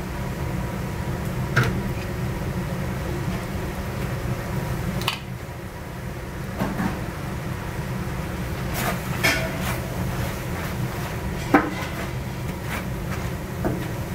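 Wooden spatula scraping and knocking against a large stainless-steel wok as a batch of seasoned pork is stir-fried, with a sharp knock about three-quarters of the way through. A steady low rumble runs underneath.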